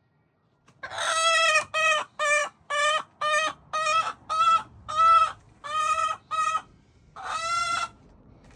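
Leghorn hen giving a loud run of about a dozen squawking calls, each a fraction of a second long, the first and last drawn out: the noisy call of a hen wanting to lay.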